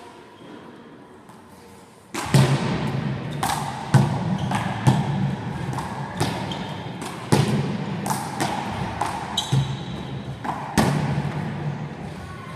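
One-wall handball rally: a small rubber handball struck by hand and smacking off the wall and floor over and over, echoing round a sports hall, with trainers squeaking on the court. The rally starts about two seconds in.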